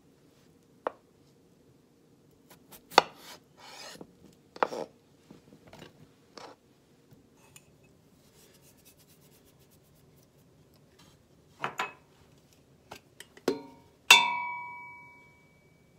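Kitchen knife knocking and scraping on a cutting board as potatoes are cut, then faint rapid grinding from a spice grinder over the pot. Near the end a metal spice can strikes a stainless steel pot with a sharp clang that rings out for over a second.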